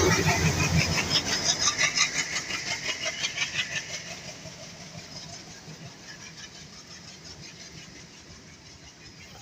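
WDG3A ALCO diesel locomotive's 16-cylinder ALCO 251 engine running with a fast pulsing beat, loud at first and then fading away over about four seconds to a faint steady rumble.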